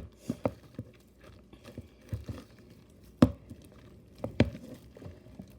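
Sticky glue slime, activated with Tide detergent, being worked by hand in a bowl: scattered sticky pops and clicks, the sharpest about three seconds in and again a second later.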